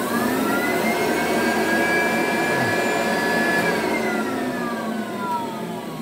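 McDonald Electric 250 upright vacuum cleaner's motor starting up, its whine rising in pitch as it gathers speed with a slow start rather than a bang, then running steadily. It is switched off about three and a half seconds in and winds down, the pitch falling away.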